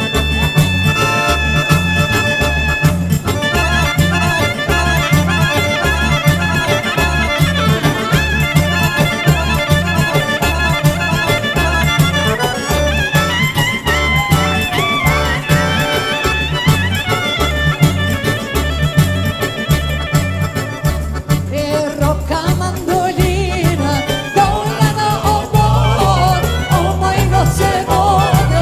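Upbeat Albanian folk-pop band music with a steady, pounding bass beat and a busy lead melody; the melody changes character about two-thirds of the way through.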